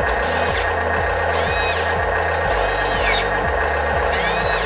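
Electric motors of a Huina 1:14 metal RC wheel loader whining up and falling back in four short runs as it is worked by remote control, over background music.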